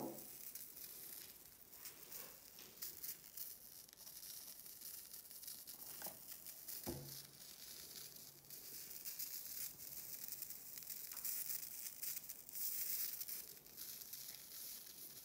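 A Tesla coil's spark gap sparking steadily, a faint continuous crackling hiss of many tiny irregular snaps from the high-voltage discharge.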